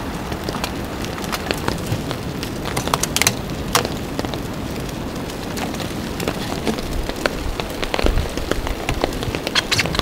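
Steady rain falling, with frequent sharp ticks of drops and a few louder clicks, clustered about a third of the way in and near the end.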